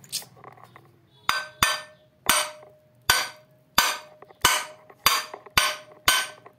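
A hammer striking metal about nine times at a steady pace, each blow ringing briefly, after a lighter click at the start.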